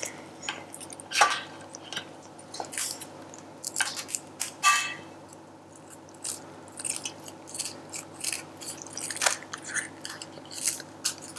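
Kitchen scissors snipping through the thin shell of mantis shrimp, giving irregular small crunches and cracks, with a few clicks as the shell is pulled away.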